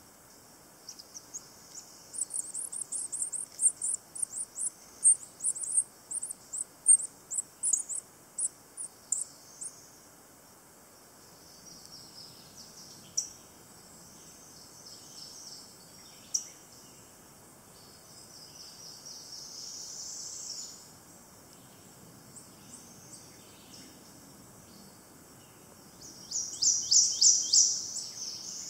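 Songbird calls: a fast run of high, thin chirps over the first ten seconds, scattered notes after that, then near the end a loud burst of rapid high calls as a prothonotary warbler comes to its nest to feed the young.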